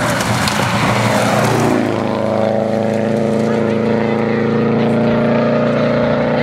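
Subaru Impreza rally car's flat-four engine at speed on gravel, passing close with a rush of tyre and gravel noise. Its note drops in pitch as it goes by, then settles into a steady engine note as it drives away.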